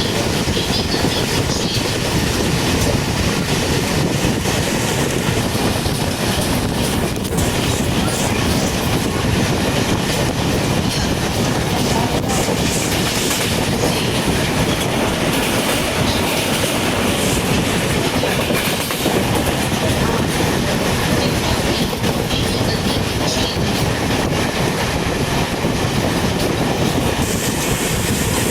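Moving train running along the track, its wheels clattering over the rails in a steady rush of running noise.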